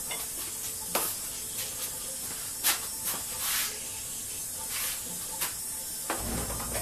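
Footsteps and shoe scuffs on a concrete floor, a few scattered light knocks, over a steady hiss; a low rumble comes in near the end.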